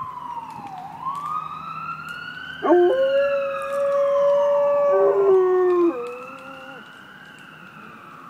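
A chocolate Labrador retriever howls along with a siren that rises and falls slowly throughout. About two and a half seconds in, the dog lets out a long howl, the loudest sound here. It holds one pitch, drops lower near its end, and is followed by a shorter howl.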